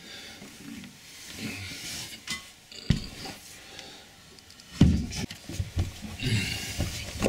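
Porcelain toilet bowl being lifted and shifted on a tile floor: scraping and clattering with a couple of hard knocks, the loudest about three and five seconds in.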